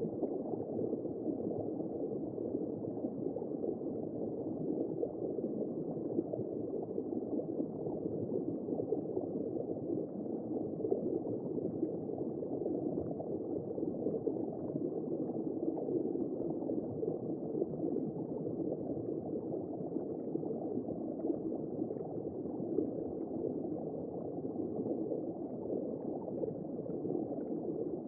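Womb-sound white noise for soothing babies: a steady, muffled whooshing hiss with nothing in the upper range and no clear beat.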